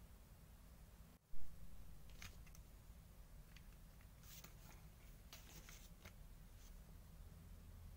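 Small clicks and taps of a die-cast toy car's body being pressed and snapped onto its chassis by hand, a dozen or so short clicks spread over several seconds. Before them, the sound drops out briefly and there is one loud knock about a second and a half in.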